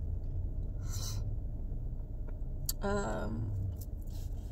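Low steady rumble of a car in motion, heard from inside the cabin, with a sharp breath about a second in and a short voiced sigh about three seconds in.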